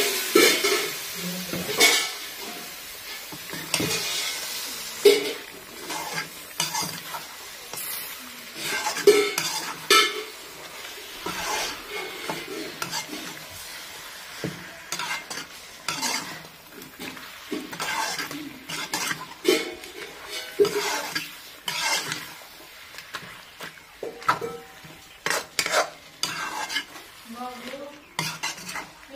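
Chicken pieces sizzling in hot masala in a metal kadai, stirred with a metal ladle that scrapes and knocks against the pan over and over at an uneven pace. The sizzle is strongest in the first few seconds, as the chicken goes in.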